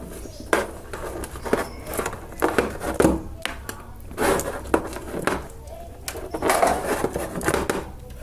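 Irregular clicks, knocks and rustling from the cables and plastic connectors of a computer power supply being handled and sorted.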